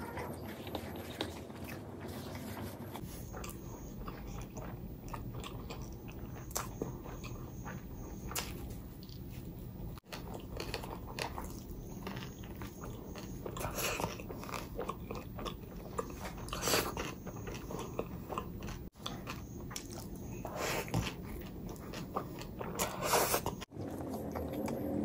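Close-miked eating sounds: a person biting and chewing food, with irregular crunchy clicks and several louder bites in the second half.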